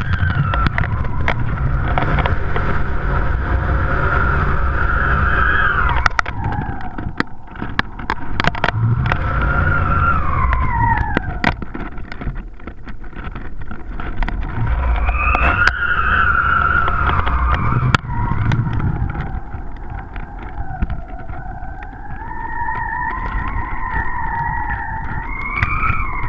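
Wind rushing over a kite-borne action camera: a low rumble of wind on the microphone, with a whistling tone that slowly rises and falls in pitch and scattered clicks and ticks.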